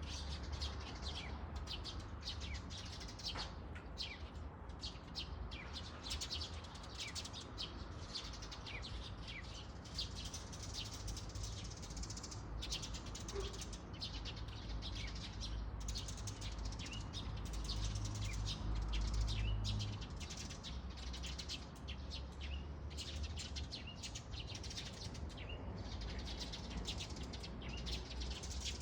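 A large flock of small birds chirping all at once, a dense, unbroken chatter of many overlapping short calls, over a low rumble that swells for a couple of seconds about two-thirds of the way through.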